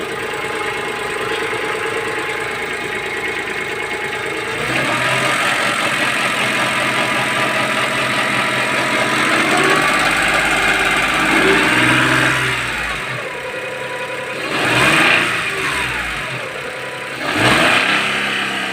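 Daewoo Matiz engine running and revved: it idles, picks up speed about four and a half seconds in and holds there, then drops back and is blipped twice near the end. A light metallic ticking rattle from under the hood goes with it; the owner traced it to an under-tightened bolt, on the alternator bracket or engine mount, letting a part ring and rattle.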